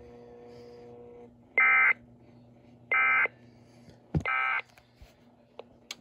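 Sage EAS ENDEC sending the Emergency Alert System End of Message (EOM) signal: three short SAME data bursts, each about a third of a second long and about 1.3 seconds apart, marking the end of the alert. A low steady hum stops about a second in, and a faint click comes just before the third burst.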